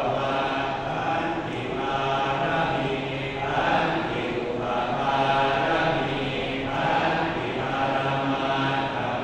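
Thai Buddhist monks chanting together in a low, steady drone that swells and eases in phrases a second or two long: the Pali chant of a ปลุกเสก (pluk sek) ceremony consecrating amulets.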